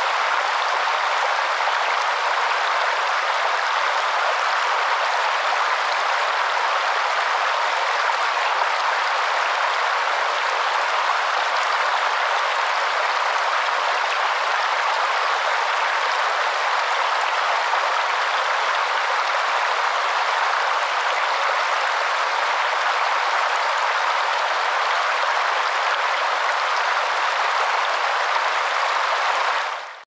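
Shallow stream rushing over rocks in a steady, even wash of water noise, fading out at the very end.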